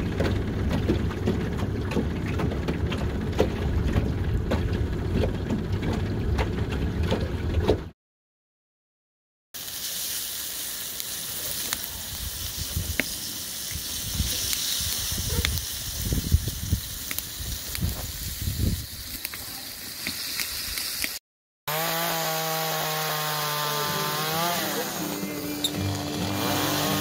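An outboard motor runs steadily for about eight seconds. After a brief cut, fish sizzles in a frying pan over a campfire, with scattered crackles. After another cut, about 22 seconds in, a chainsaw revs, its pitch rising and falling as it cuts into a fallen tree.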